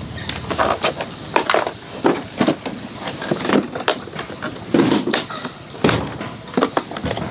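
A run of irregular knocks and clatters, several a second, with a few heavier thuds among them.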